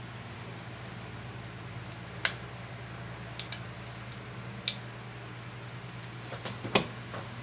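Small repair tools and phone parts clicking and tapping: one sharp click about two seconds in, a quick pair a second later, another near the middle, and a short cluster near the end, over a steady low hum.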